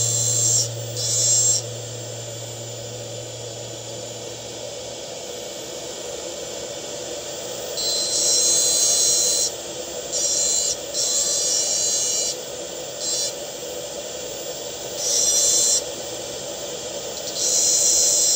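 Dental lab handpiece spinning a bur against a metal implant framework, grinding in a series of short, high-pitched whining bursts that start and stop, most of them in the second half.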